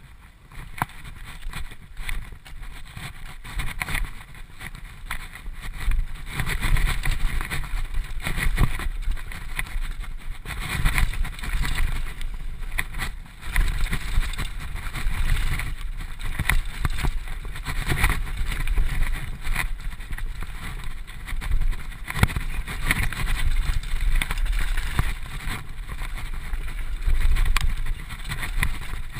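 Mountain bike riding fast down a dirt trail: a steady rush of wind on the bike-mounted camera's microphone, with tyre noise on the dirt and scattered knocks and rattles from the bike over bumps.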